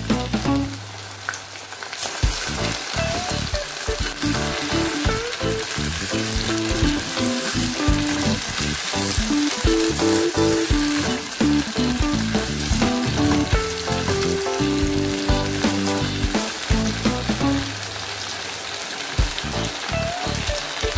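Chicken pieces and yogurt sizzling in hot oil in a nonstick pot, stirred and scraped with a silicone spatula, over background music.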